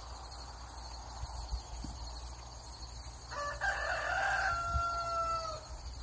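A rooster crowing once, about halfway through: a rough opening followed by a long held note that falls slightly at the end.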